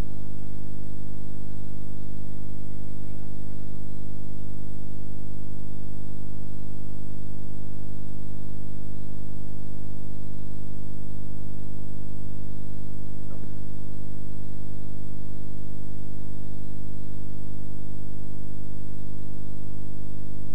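Loud, steady electrical hum: a constant low buzz with a stack of even overtones that does not change.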